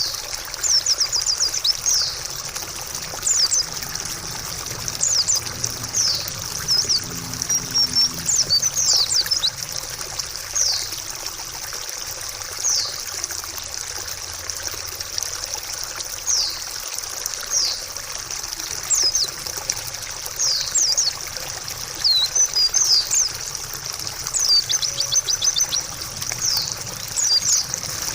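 Trickling water running steadily under a white-eye (pleci) singing quick high chirps and short twittering phrases, coming every second or two.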